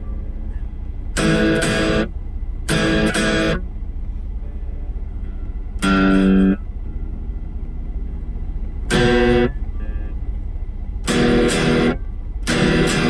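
Electric guitar (a Fender Stratocaster) through a Blackstar ID Core V3 10-watt amp, playing six separate short chords. Each chord is cut short after under a second, with pauses of one to three seconds between them, and a steady low hum runs underneath.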